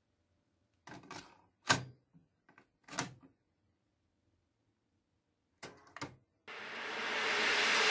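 Technics M24 cassette deck being loaded and started: sharp plastic clicks and clacks as a cassette goes into the holder and the door is pushed shut, the loudest about two seconds in, then two clicks close together as a transport key is pressed about six seconds in. A hiss then swells steadily as the tape starts to play.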